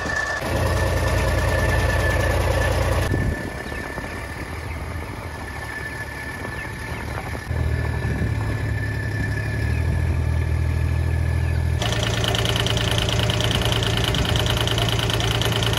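Engine of a farm utility vehicle (side-by-side) running steadily at idle, a low hum that changes abruptly a few times.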